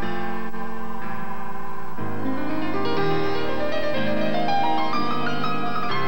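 Piano music: held chords, with a line of notes climbing step by step through the middle.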